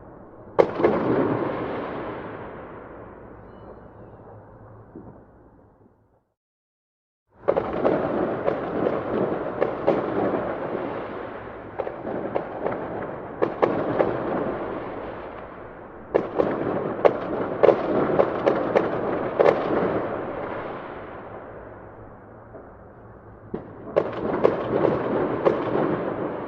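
Fireworks going off: sharp bangs and crackling in repeated volleys, each followed by a fading rumble, with a dense run of reports in the middle. The sound cuts to complete silence for about a second early on, then resumes abruptly.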